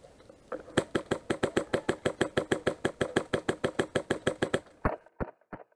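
Airsoft rifle firing a rapid, even string of shots at about six a second, each a sharp close snap. Near the end the shots carry on fainter and slightly slower.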